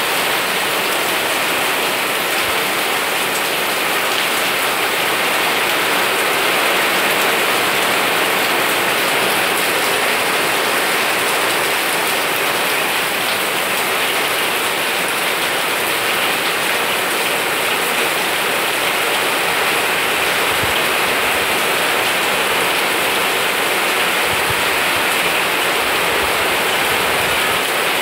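Loud, steady rain falling on garden foliage: an even, dense hiss of rain with no breaks.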